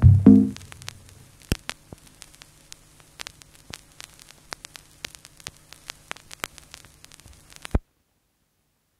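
Stylus playing a hand-cast resin record on a belt-drive turntable: irregular clicks and crackle of surface noise over a faint low hum, after a loud sound dies away in the first half-second. The sound cuts off suddenly near the end.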